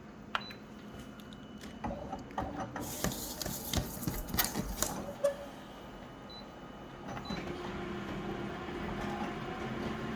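Handling clicks and crackly rustling, then about seven seconds in a photocopier starts up and runs with a steady mechanical hum.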